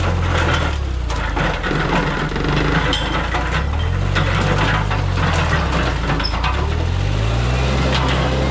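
Mini skid steer engine running hard with a bush hog attached. Its pitch dips and recovers a few times as it takes load, with sharp cracking and snapping of wood and brush being cut.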